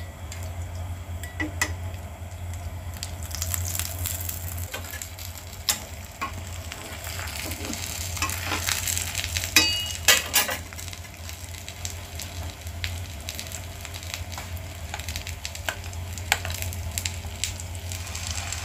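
Steady sizzling of pitha batter frying in butter in a nonstick pan, with scattered sharp clicks and knocks of a utensil against the pan, loudest about ten seconds in.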